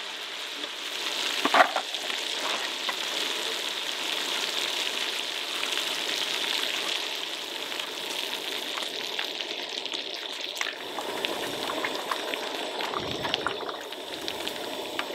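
Bacon pieces sizzling and frying in a Tembo Tusk Skottle disc griddle: a steady crackling hiss. There are occasional small utensil clicks, with one louder one about a second and a half in.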